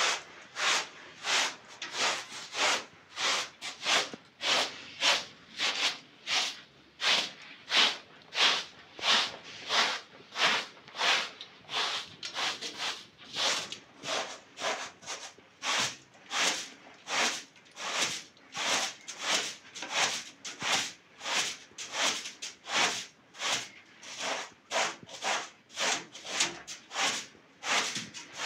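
Short straw hand broom sweeping a pile carpet in quick, regular brushing strokes, about two a second.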